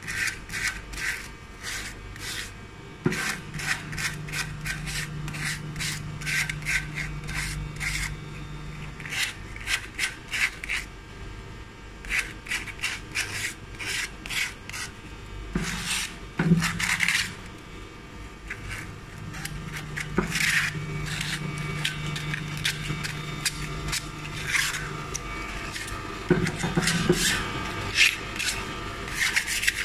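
Sandpaper rubbed back and forth along the edges of a machined aluminium block to take off burrs: quick repeated scratchy strokes in runs, with short pauses between them.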